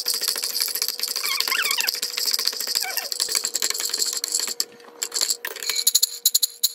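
Whole almonds rattling and clattering against a nonstick frying pan as they are stirred with a spatula while dry-roasting, with a couple of brief squeaks. The rattling is dense for the first four seconds or so, then thins to scattered sharp clicks near the end.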